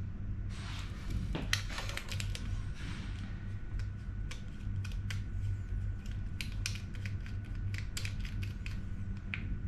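Irregular light clicks and taps of hand tools and metal fittings being handled during engine assembly, over a steady low machinery hum.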